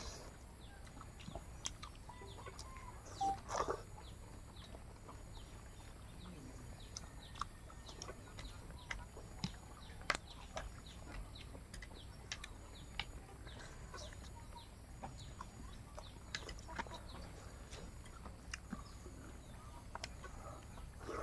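Soft close-up eating sounds of rice and curry eaten by hand: chewing, lip-smacking and many small wet mouth clicks. A louder short cluck-like sound about three and a half seconds in.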